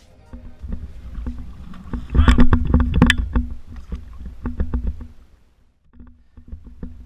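Water splashing with irregular knocks, loudest about two to three seconds in, then dying down to a few scattered knocks near the end.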